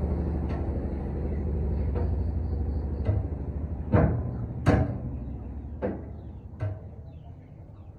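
Metal knocks and clanks from hands working on the housing of a large chopper machine, about seven sharp hits, the loudest two near the middle. Under them a low machine hum fades away.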